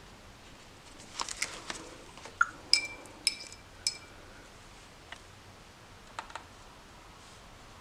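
Paintbrush being rinsed and knocked against a hard water pot: a quick run of small clicks and rattles, then three ringing taps about half a second apart. Near the end there are a few faint clicks as the brush touches the paint pans.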